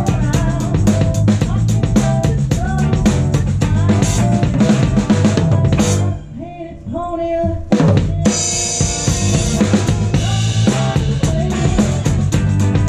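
Drum kit played live with a band: quick snare, tom and bass-drum strokes over the band's low notes. About six seconds in, the drums drop out for a moment, then come back with a hit and a sustained wash of ringing cymbals.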